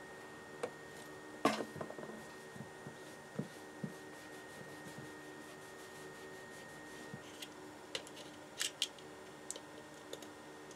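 Faint scattered clicks and taps of a brass flywheel and small parts being handled on a bench, a cloth rubbing over the brass, and small steel grub screws rattling in a plastic parts box. The loudest is a single knock about a second and a half in.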